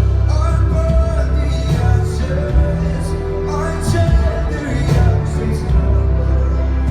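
Live band music played loud through a concert PA, with a heavy bass, steady drum and cymbal hits, and long held melodic notes.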